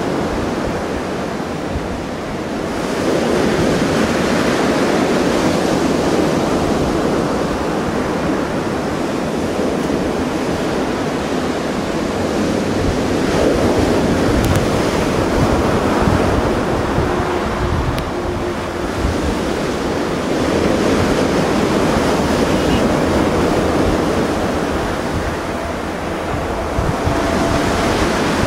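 Sea waves washing onto the shore, swelling and easing every few seconds, with wind buffeting the microphone.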